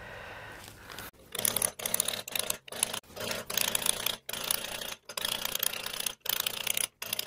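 A corroded 3/8 Whitworth bolt being turned out of a steel engine mount by hand, its threads rasping in about ten short twists with brief pauses between them, starting about a second in.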